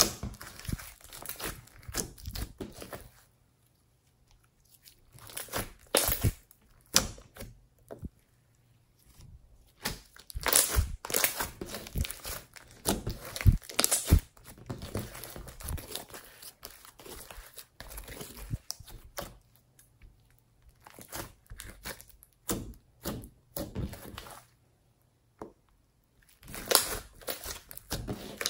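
Hand-worked slime (clear slime mixed with metallic eyeshadow) being squeezed, stretched and folded. It gives irregular clusters of crackles and pops as air pockets burst and the slime tears, with a few short pauses when the hands stop.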